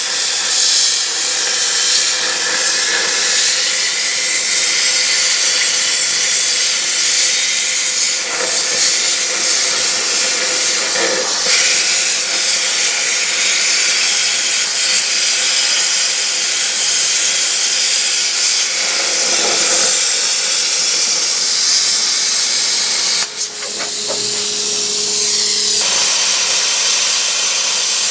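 Hypertherm Powermax 1000 plasma cutter arc hissing steadily as it cuts through a lathe bed. The hiss cuts out briefly about 23 seconds in, then starts again.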